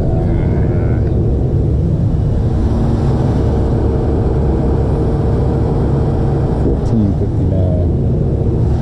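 Tow truck engine running, a steady low rumble with a faint steady hum over it for a few seconds in the middle.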